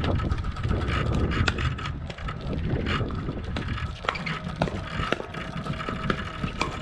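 Pickleball paddles striking a hard plastic pickleball in a fast doubles rally: a series of sharp pops roughly a second apart, closer together around the middle, over a low steady rumble.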